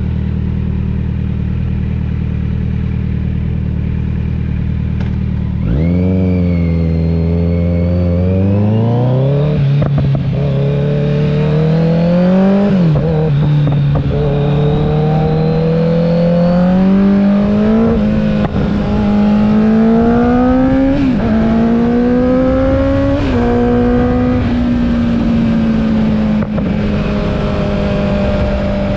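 2021 Kawasaki Z900's 948 cc inline-four, fitted with an aftermarket CS Racing exhaust and headers, running steadily at first. About six seconds in, it pulls hard with a repeatedly rising engine note, each climb ending in a sharp drop in pitch like a gear change. It then settles to a steady note near the end.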